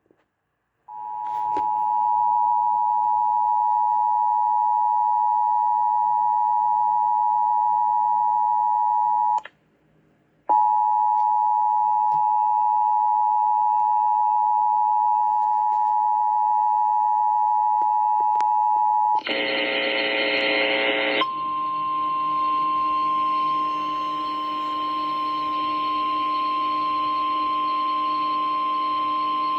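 Emergency Alert System two-tone attention signal played over FM radio: a steady dual tone held for about eight seconds, a second of silence, then the same tone again for about eight seconds. About nineteen seconds in it breaks into a two-second burst of harsh noise, followed by a single steady higher tone.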